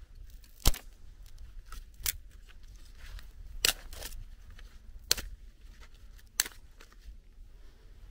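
Dry twigs snapped by hand into kindling: five sharp cracks, roughly one every second and a half, the first the loudest, with light crackling of twigs being handled in between.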